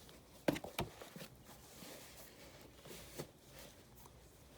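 A few light knocks and clicks from objects being handled, clustered about half a second to a second in, with scattered softer ones later over faint room tone.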